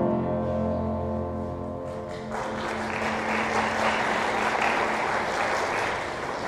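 The final held chord of the choir's music dies away, and about two seconds in the church congregation breaks into applause, which goes on for several seconds and starts to fade near the end.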